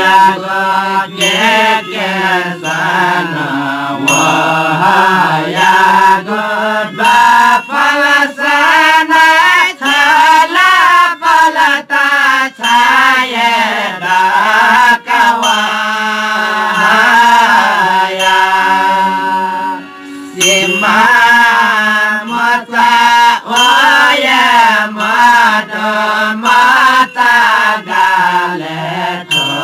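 Newari devotional folk song sung by a group of Jyapu singers in chant-like unison, accompanied by harmonium and by regular strikes of tah (small cymbals) and lalakhi (barrel drum). There is a brief lull about two-thirds of the way through.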